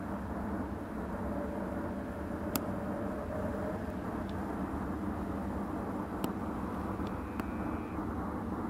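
Steady low rumble of outdoor background noise with a few faint sharp clicks, and a short faint high whistle near the end.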